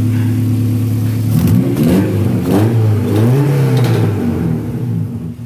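Honda Civic Type R swap engine, a four-cylinder, idling and then blipped through a few quick revs that rise and fall before it drops back to idle. It is running without a muffler.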